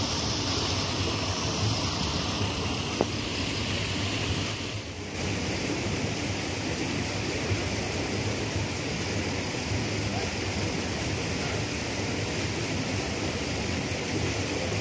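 Steady rush of a rocky river's current, an even hiss of flowing water that dips briefly about five seconds in.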